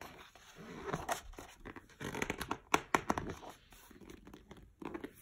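Pages of a large hardcover picture book being turned by hand: a run of crisp paper rustles and crackles, loudest about two to three seconds in.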